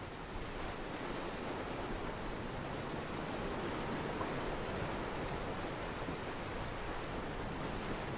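Steady wash of sea surf, an even rushing noise with no distinct breakers standing out.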